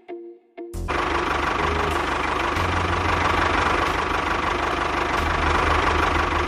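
An engine running steadily, cutting in abruptly just under a second in after a brief near-silence that holds only a few faint tones.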